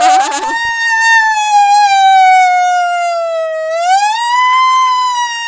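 Buzzing, kazoo-like wail made by blowing or humming into a Nerds candy box. It holds one high, rich tone that sags slowly, rises about four seconds in, then falls again, like a siren.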